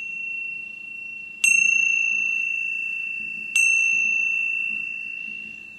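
High-pitched metal chime struck twice, about two seconds apart. Each strike rings out as one clear note with a few higher overtones and fades slowly, and the ring of an earlier strike is still fading at the start.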